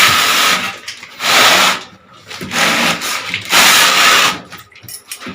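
A power tool run in four short bursts of about a second each, with brief pauses between them.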